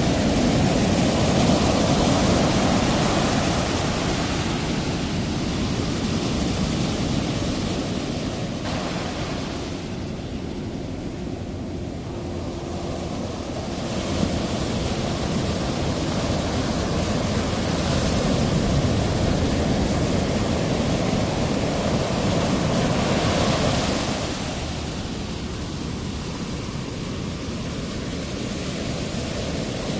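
Ocean surf: a steady rush of breaking and washing waves that swells louder and eases off again over stretches of several seconds.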